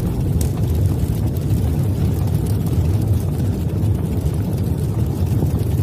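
Low, steady rumbling whoosh of a fireball sound effect accompanying an animated smoke-burst logo reveal.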